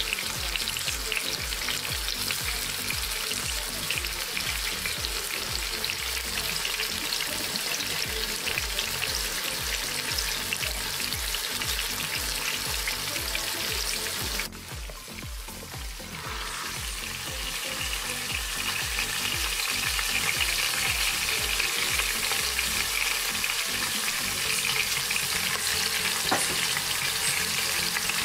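A jerk-spiced beef topside joint sizzling and spitting as it sears in hot oil in the pot of an electric pressure cooker. The sizzle dies down briefly about halfway through and comes back.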